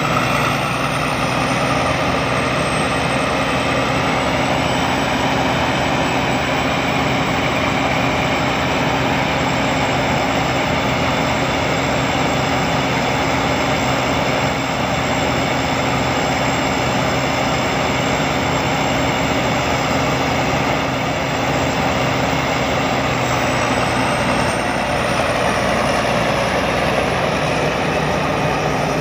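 Sakpattana rice combine harvester running steadily at working speed, a loud engine drone mixed with the rushing noise of its machinery.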